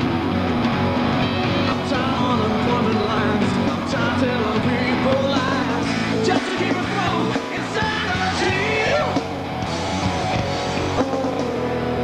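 Rock music with guitar and singing.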